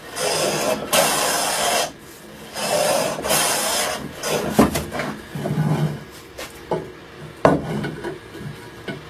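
Hand plane taking shavings off a wooden frame piece: four strokes in the first four seconds, each a dry hiss under a second long. After that come a few scattered sharp knocks of wood.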